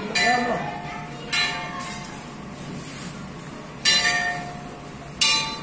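Hindu temple bell struck four times at uneven intervals, each stroke ringing on and fading. The first two strokes come about a second apart, and the last two come after a pause of over two seconds.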